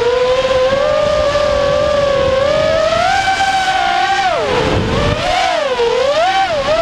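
Racing quadcopter's brushless motors (Cobra 2206 2100KV) and propellers whining, recorded on board. The pitch holds fairly steady, drops sharply about four and a half seconds in, then swings up and down several times near the end as the throttle changes, over a low rush of wind noise.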